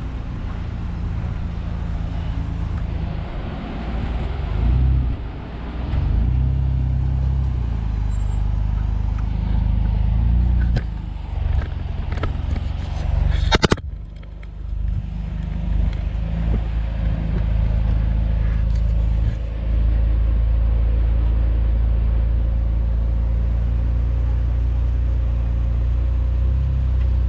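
Jeep engine running at low speed while manoeuvring to park, a steady low hum that rises and falls a few times. A single sharp click or knock about halfway through.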